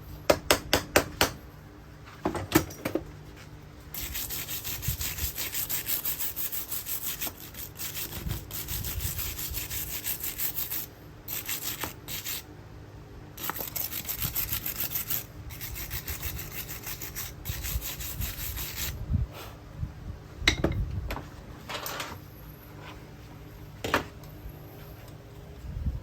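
Abrasive rubbing in quick back-and-forth strokes, in two long spells with a pause between, after a quick run of clicks at the start.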